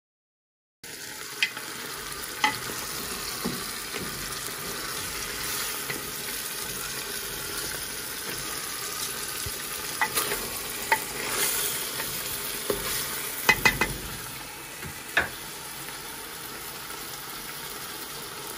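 Meat, bones and vegetables starting to fry in olive and sunflower oil in a pot on the heat: a steady sizzling hiss that starts about a second in, with a few sharp clicks and knocks.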